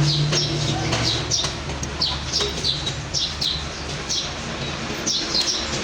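Small birds chirping in short, quick, falling calls, about two a second, with a brief pause past the middle, over a steady low hum.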